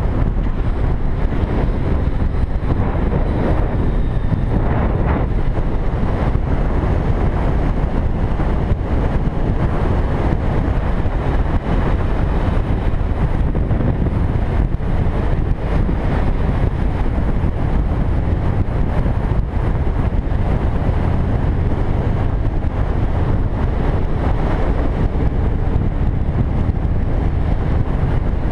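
Steady wind rush over the camera microphone of a moving motorcycle at road speed, with the motorcycle's engine running beneath it.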